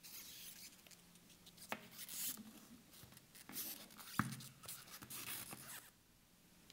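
Faint handling noise of a Seiko 5 Sports watch on a leather strap and a nylon NATO strap being moved and laid on the presentation box: rustling and rubbing with two light clicks, about two and four seconds in, the second one sharper.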